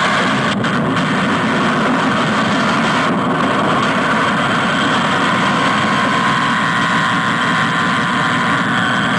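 Harsh noise music: a dense, steady wall of electronic noise with no breaks or changes in level.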